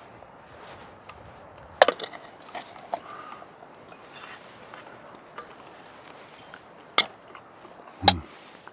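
A metal utensil clinking and scraping in a camp frying pan while fish is served out of it. There are three sharp knocks: one about two seconds in and two near the end, the last with a duller thud. Lighter scrapes and clicks fall between them.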